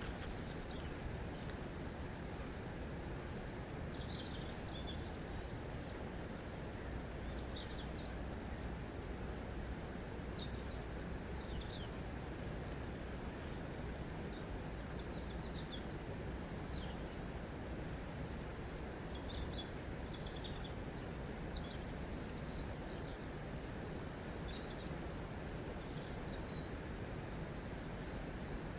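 Steady rush of flowing water, with small birds chirping in short, high calls throughout.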